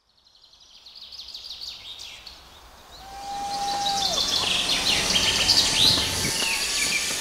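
Birds chirping, many short overlapping calls, fading in from silence, with outdoor background noise that grows louder about three seconds in. A single held whistled note sounds for about a second around three seconds in, then drops away.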